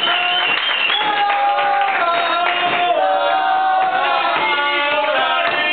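A man singing a Valencian albà unaccompanied, in long high, held and ornamented phrases that glide between notes, with other voices of the room underneath.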